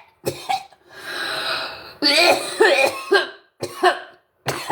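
A person coughing repeatedly in short, sharp bouts.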